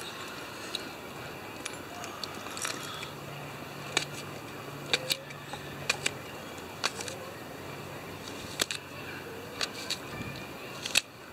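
Swiss Army knife on a key ring being opened with the keys jangling, then its blade chopping green onion on a small plastic lid: scattered sharp clicks and taps, roughly one a second, over a steady background hiss.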